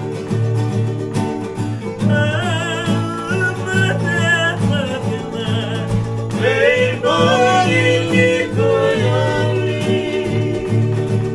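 Several acoustic guitars strummed together, with men singing along from about two seconds in.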